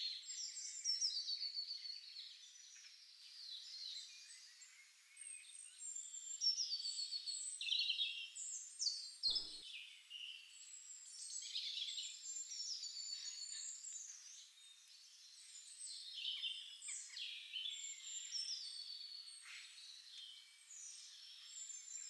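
Garden birdsong: several small birds chirping and singing in short, high phrases, coming and going in waves, with almost no low sound beneath them.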